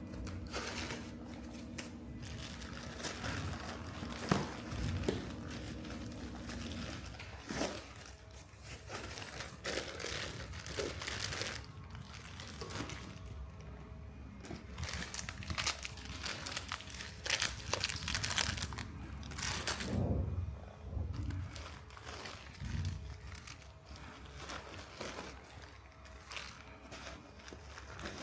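Packaging crinkling, rustling and tearing as it is handled, in irregular bursts. A faint steady hum sits under it for the first seven seconds or so, then stops.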